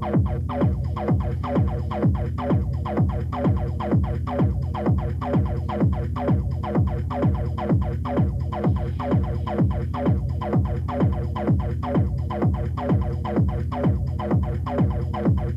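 Techno music: a pounding four-on-the-floor kick drum about twice a second, each hit dropping in pitch, under a heavy bassline and sustained synth tones.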